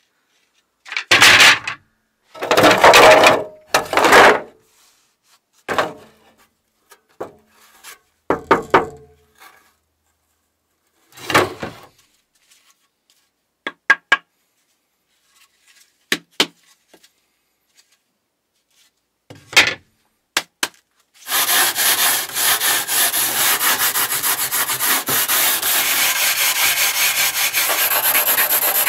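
Hand work on carbon fiber parts: a series of short rubbing and scraping strokes with a few sharp clicks, then a continuous fast scraping from about two-thirds of the way in.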